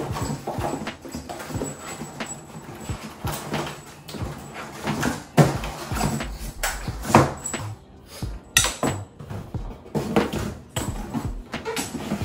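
Cardboard packing inserts being pulled and shifted out of a box, with scraping, rustling and irregular knocks. The sharpest knocks come about five and seven seconds in.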